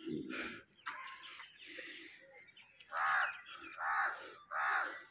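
Crows cawing: a few faint caws, then from about three seconds in a louder run of about four harsh caws, each a little under a second apart.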